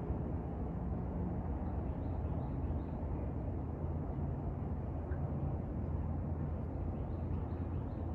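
Steady low outdoor rumble with a faint hum in it. A bird chirps faintly in two short runs of notes, about two seconds in and again near the end.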